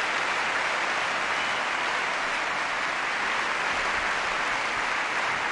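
Audience applauding: a steady, even patter of many hands clapping.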